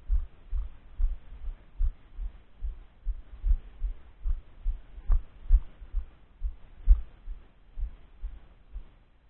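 A person's footsteps walking, heard as dull low thumps about two to three a second, carried through a body-mounted camera.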